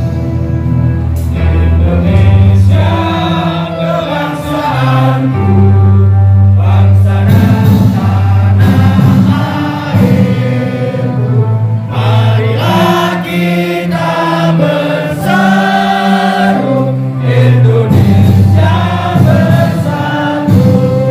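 A group of people singing together in unison along with music that has long held bass notes.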